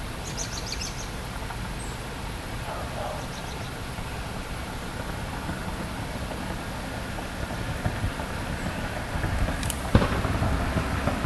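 Steady outdoor background rumble of distant traffic, with a few short bird chirps near the start and a single sharp pop about ten seconds in.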